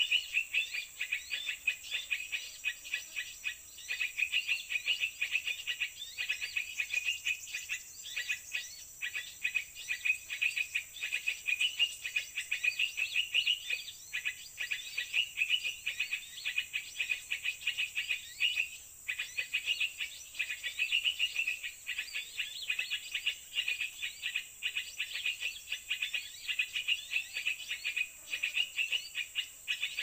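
Small birds chirping rapidly and continuously in high, twittering runs, over a steady high insect drone.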